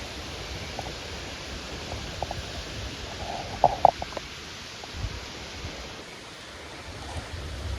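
Steady hiss of rain with wind, the wind rumbling low on the microphone in gusts. A few sharp drop-like ticks come through, clustered a little before halfway.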